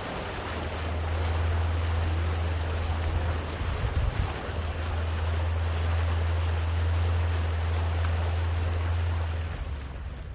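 Outboard motor pushing a small boat across open water: a steady low engine drone under the rush of water and wind. The drone turns briefly uneven about four seconds in and eases off near the end.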